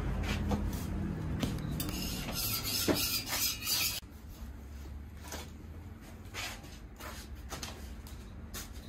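Metal spatula scraping across a flat iron griddle as small pancakes are lifted off it. The scraping is loudest from about two to four seconds in and stops abruptly, followed by scattered short taps of metal on the plate.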